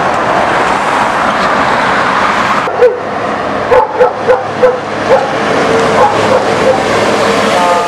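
Straight-piped Mercedes SK truck engine passing close by, loud and steady. Then a dog barks about ten short barks over the noise of an approaching truck.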